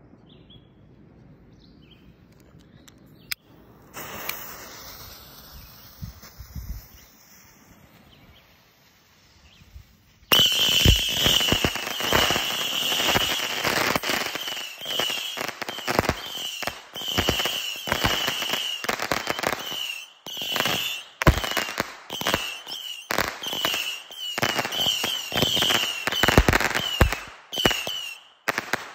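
Saturn missile battery firing: a hiss starts about four seconds in, then from about ten seconds a rapid, unbroken stream of whistling missiles with sharp cracks and pops. It cuts off just before the end.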